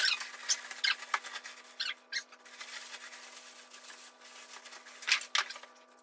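Plastic wrapping crinkling and squeaking as it is pulled off a drum shell: short irregular rustles, thickest in the first second and again about five seconds in, with a quieter stretch between.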